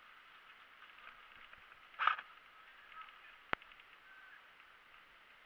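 Faint outdoor hiss, broken by a brief louder burst about 2 s in and then a single sharp click about 3.5 s in: one shot from an airsoft AK-47 replica.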